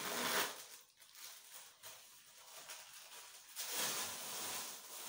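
Plastic wrapper of a sanitary pad rustling and crinkling as it is opened and the pad unfolded, in two stretches: a short one right at the start and a longer one from about three and a half seconds in.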